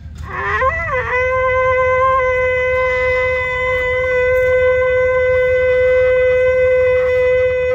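Hunting horn blown in one long, steady note after a brief wavering start, sounding the call that opens a deer hunt with dogs.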